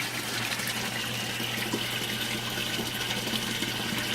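Steady rush and splash of water flowing through an aquaponics grow bed and sump, with a low steady hum underneath; the grow bed's siphon is still draining and slow to break.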